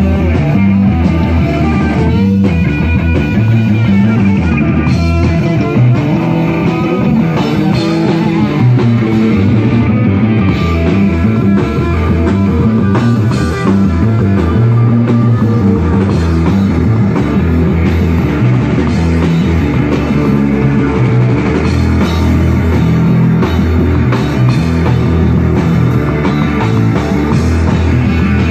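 Live rock band playing loud, steady rock: electric guitar over a drum kit.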